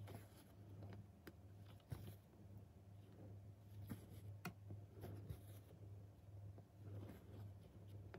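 Faint cross-stitching sounds: a needle poking through 18-count fiddler's Aida fabric with small, irregular clicks and soft scratchy rasps as the thread is drawn through.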